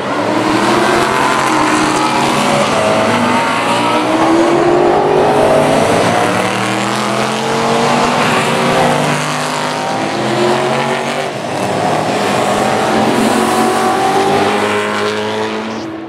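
A pack of saloon race cars, Mercedes C63 AMGs and a Maserati among them, running together through a chicane. Several engines overlap loudly, their pitch rising again and again as they accelerate up through the gears.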